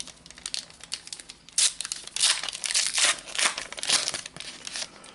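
Plastic wrapper of a Panini Adrenalyn XL trading-card packet crinkling as it is handled and torn open by hand, in a quick run of crackly rustles that are loudest in the middle and die away near the end.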